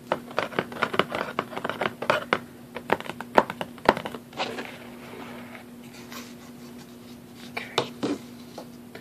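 Fingertips and nails tapping and scratching on a cardboard box lid: quick, irregular taps for about four seconds, then softer scratching, with a couple more taps near the end.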